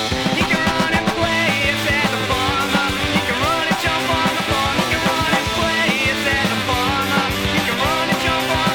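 Rock music with electric guitar, steady drumbeat and a singing voice.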